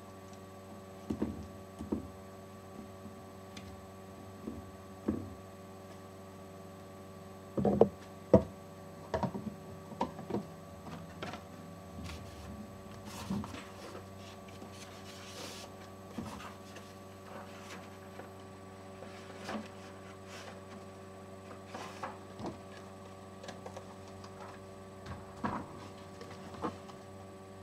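Hornady Lock-N-Load AP progressive reloading press being worked: scattered metallic clicks and clunks, the loudest a pair about eight seconds in, over a steady electrical hum.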